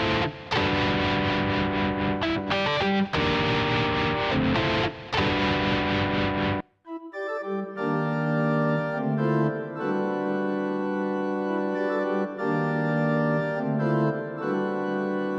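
Roland XV-5050 synthesizer module playing an organ-like patch in held chords, bright and full, which stops about six and a half seconds in. After a short gap a second, mellower keyboard patch plays slow held chords.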